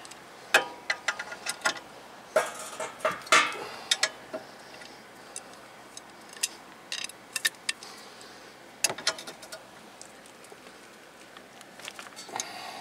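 Metal hand tools clinking and clicking: a ratchet on a long extension handled and worked at the rear brake caliper bracket. The sharp clicks come in irregular clusters, busiest in the first few seconds and again about nine seconds in.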